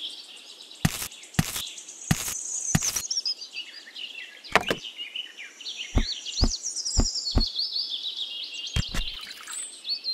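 Small birds chirping and singing without a break, with about ten short, sharp clicks or taps scattered through, four of them evenly spaced about half a second apart in the middle.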